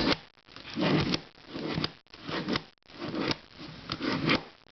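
Plastic twisty puzzle cubes being handled: rubbing and scraping in short bursts, with light clicks and knocks.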